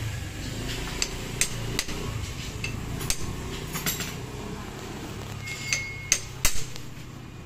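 Metal hand tools clinking and tapping on a motorcycle while its drive chain is being adjusted: irregular sharp clanks over a low steady hum, with the loudest few close together near the end.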